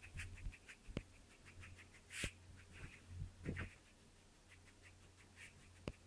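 Small dog sniffing in quick runs of short sniffs as it noses through bedding for treats, with a louder rush of noise about two seconds in and a few sharp clicks.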